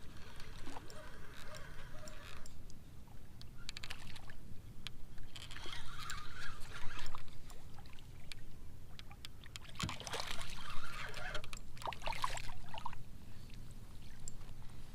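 Water sloshing against a kayak, with scattered clicks and knocks from handling on the hull and two louder noisy spells about five and ten seconds in.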